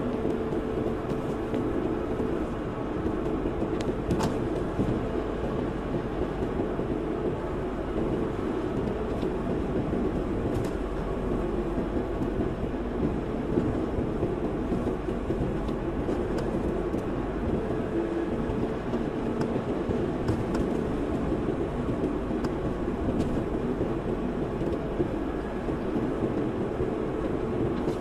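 Steady road and engine noise heard from inside a moving car's cabin, with a faint even hum and a few small ticks.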